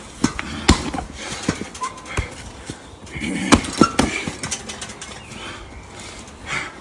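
Punches and kicks landing on a hanging leather heavy bag: a quick series of sharp thuds, most of them in the first four seconds, then sparser.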